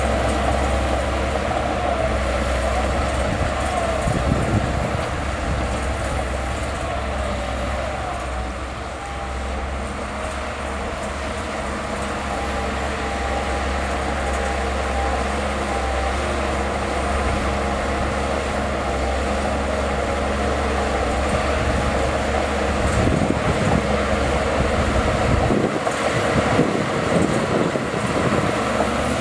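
Crawler bulldozer's diesel engine running steadily under working load, with a few knocks late on and a brief dip in its low rumble near the end.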